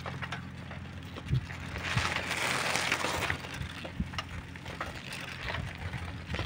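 Footsteps crunching on a dirt and gravel track, with a short rushing hiss about two seconds in.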